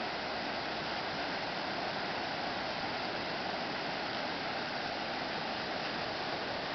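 Fast-flowing stream rushing over rapids: a steady, even rush of water.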